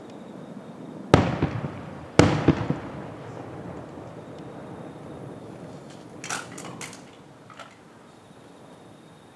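Aerial fireworks shells bursting: two loud bangs about a second apart, each followed by a few smaller cracks and a rumbling echo that dies away, then a brief fainter crackle.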